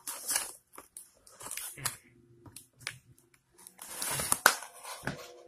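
Packaging on a shoe box being pulled open and torn: scattered rustles, crinkles and short tearing sounds with brief pauses, busiest near the end.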